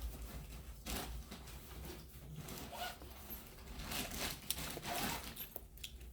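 A zipper being pulled in several short rasping strokes, with some rustling, as bags are packed.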